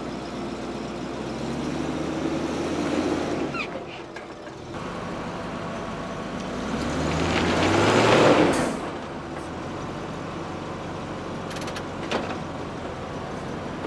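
Range Rover engine revving as the front tyre, let down to 1.7 bar, strains against a wooden log without climbing it. The revs rise twice, the second time more strongly with a rushing noise that peaks about eight seconds in, then fall back to a steady low running.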